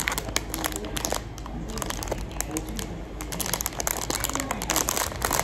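Clear plastic wrapper around a bread bun crinkling as it is handled and squeezed, with quick irregular crackles throughout.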